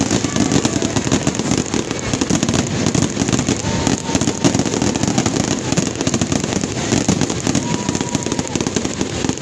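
Fireworks display: a dense, unbroken barrage of bangs and crackling from many shells bursting in quick succession.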